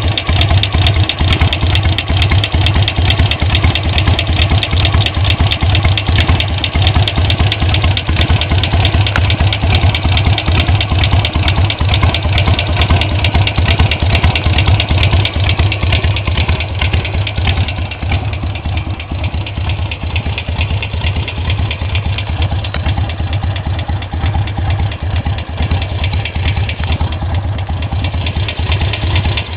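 Harley-Davidson Sportster 883 XL Low's air-cooled V-twin idling steadily with a ticking sound. It runs a little quieter for about ten seconds past the middle.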